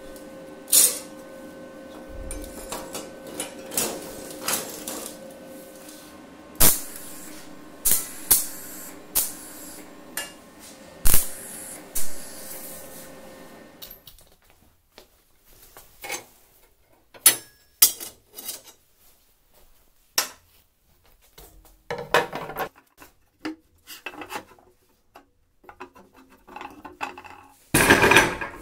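Steel pieces clanking and clattering as they are handled, with sharp knocks at uneven intervals. A steady hum runs under the first half and stops about halfway through, and a louder scraping rub comes near the end.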